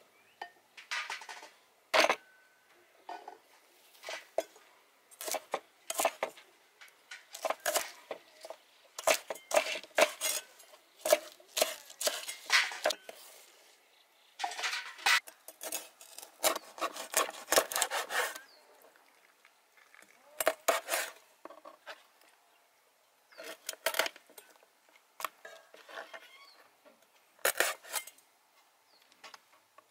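Chinese cleaver striking a wooden chopping board: scattered single blows and runs of quick chopping with short pauses between, as garlic and scallions are cut and then a plucked pigeon is chopped up.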